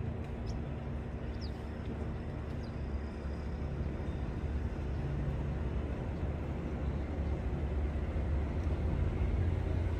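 Outdoor ambience: a steady low rumble with an even hiss above it, and a few faint, short high chirps in the first three seconds.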